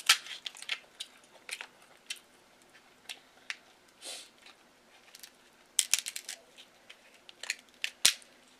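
Kitchen scissors snipping through a boiled king crab leg's shell, then the shell cracking as the meat is pulled out: a string of sharp, irregular clicks and cracks, with a quick cluster of them about six seconds in.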